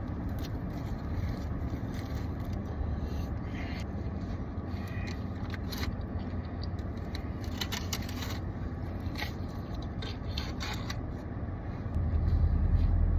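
Someone handling and eating takeout food: scattered short crinkles, scrapes and clicks over a steady low rumble that grows louder near the end.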